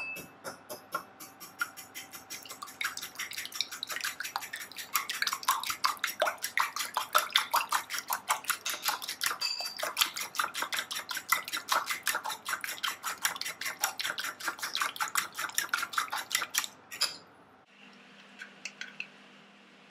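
A metal fork beating eggs in a ceramic bowl: rapid, regular clinks of the fork against the bowl, several a second, stopping a couple of seconds before the end.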